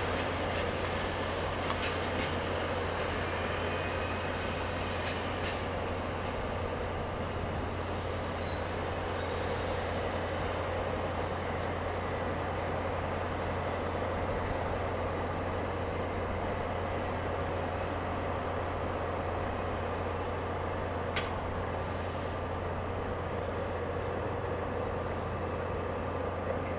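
Diesel engine of a DB Class 628 diesel multiple unit running with a steady low drone as the train pulls slowly away, with a few scattered sharp clicks.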